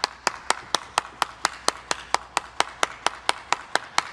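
Evenly spaced sharp clicks, about four to five a second, keeping a steady, machine-regular beat.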